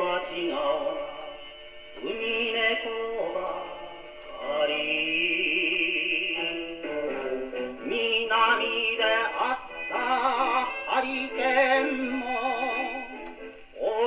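A Japanese popular song recording playing from a 78 rpm shellac record on a SANKYO Goldring portable wind-up gramophone with a steel needle. The sound is thin and mid-range with no deep bass, and its melody line has a heavy vibrato.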